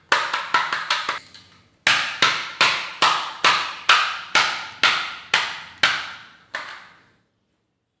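A plastic chocolate mould full of white-chocolate and cashew mixture being tapped down on a stone countertop to settle and spread the mix. A quick run of about six sharp taps, a short pause, then about eleven steady taps at about two a second, stopping about seven seconds in.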